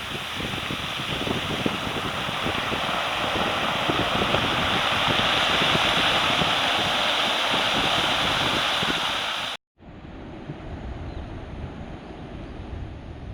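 Heavy typhoon-driven ocean surf, a steady noise of breaking waves that swells louder through the first several seconds, with wind buffeting the microphone. Nearly ten seconds in it cuts off abruptly and gives way to a quieter, lower rumble.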